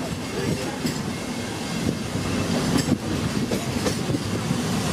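Narrow-gauge steam train heard from an open passenger car as it rolls along: a steady rumble of wheels on rail with a few knocks from the track.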